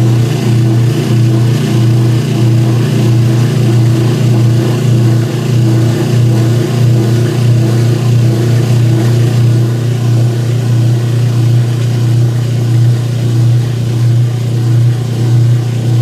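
Kenmore 80 series direct-drive washer's motor and drain pump running in a neutral drain, pumping the wash water out with a steady low hum.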